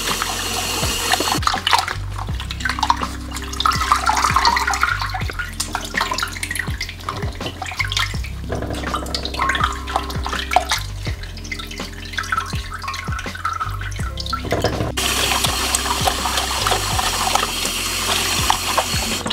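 Kitchen tap running into a glass bowl in a stainless steel sink, with splashing and swishing as gloved hands rinse pieces of cut shark meat in the water; the running water is loudest at the start and again from about three-quarters of the way through. Background music with a steady bass line plays underneath.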